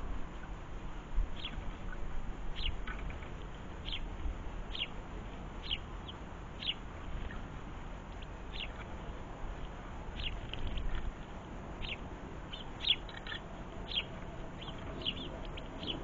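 Short, high chirps from a small garden bird, about one a second, coming faster and in small clusters near the end.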